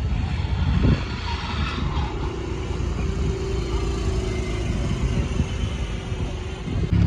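Car engines running in street traffic: a steady low rumble with shifting engine tones.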